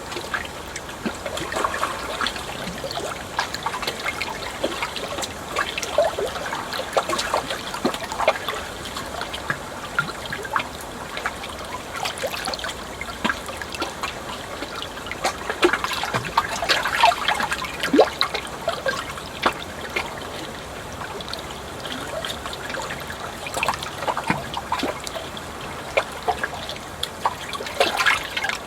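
Water trickling and splashing steadily, with many small irregular splashes and drips over a constant flow.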